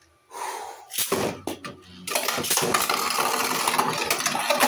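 Two 3D-printed Beyblade tops launched into a plastic Beyblade stadium: a short whirr of the launch, then they hit the bowl about a second in. From about two seconds in there is a loud, steady clatter as the tops spin and scrape and clash against each other and the stadium walls.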